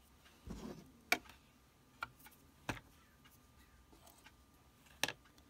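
A handful of scattered sharp clicks and light knocks, the loudest near the end: parts of a Brother sewing machine being handled and fitted back together.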